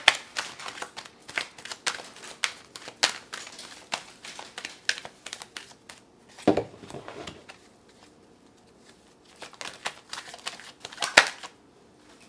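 A deck of tarot cards shuffled by hand, the cards slapping together in quick clicks. About six and a half seconds in there is a low thump, then a pause of about two seconds before the shuffling starts again.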